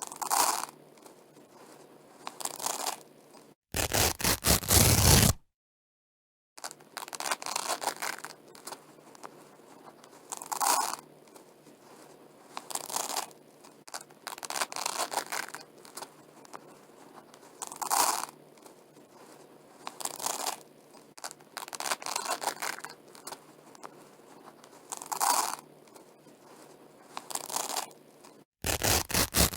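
Velcro (hook-and-loop fastener) being peeled apart again and again, a short ripping tear about every two seconds. Twice, about four seconds in and near the end, a longer and much louder rip is followed by a second of dead silence.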